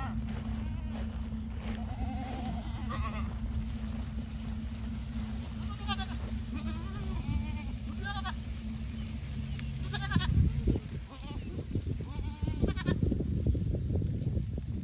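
Goats bleating several times, wavering calls spread through the herd. Under them runs a steady low hum that stops about ten seconds in. Rough low rustling and knocking noise follows, including the loudest moment.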